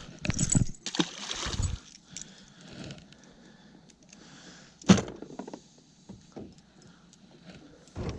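Handling noises in a fishing boat: loud rustling and scraping bursts, then one sharp knock about five seconds in, with scattered small clicks.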